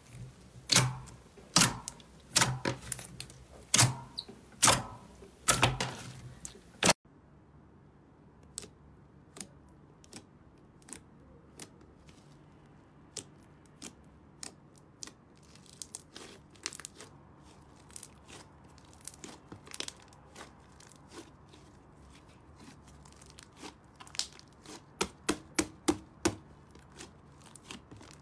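Slime worked by hand, making sticky pops and clicks: white fluffy slime being stretched gives loud, sharp pops about every 0.7 s. About seven seconds in, the pops turn quieter and scattered as thick green slime is pressed with the fingers, with a quick run of louder pops near the end.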